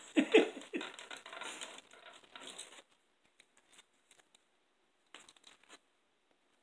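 Close-up eating sounds: burgers are handled and bitten into, with crinkling and crunching that are loudest in the first second. The sounds thin out to faint scattered clicks after about three seconds.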